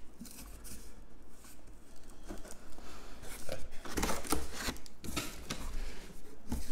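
Crumpled kraft packing paper rustling and crinkling as hands dig through it in a cardboard shipping box. The rustles come in irregular bursts that grow busier about two seconds in.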